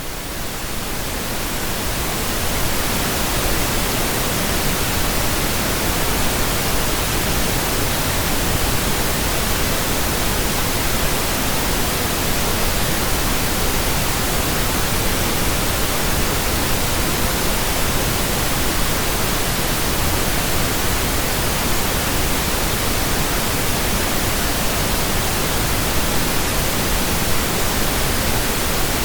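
Synthesized pink noise: a steady static hiss like a radio not tuned to a station, fading in over about the first two seconds and then holding level.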